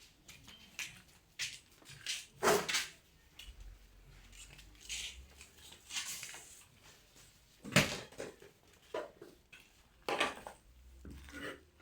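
Scattered knocks and clatters of things being handled, the loudest a sharp knock about eight seconds in.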